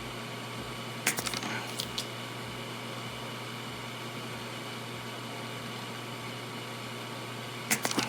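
Steady fan hum under small, sharp metallic clicks and taps: a cluster about a second in, two more just after, and another cluster near the end. They come from hand-soldering the last pin of a replacement USB-C connector onto the keyboard's circuit board.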